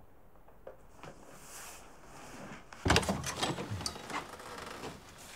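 A wooden door with glass panes being unlatched and pulled open: a sudden loud clack about three seconds in, then about two seconds of rattling.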